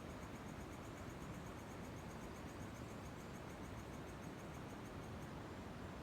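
A cricket chirping in an even, rapid series of high pulses, about five a second, that stops about five seconds in, over a faint steady low background hiss.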